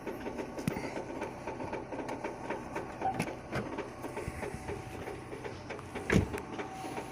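Renault K4M 1.6 petrol engine idling cold, with a rapid, even ticking knock. A single louder thump comes about six seconds in.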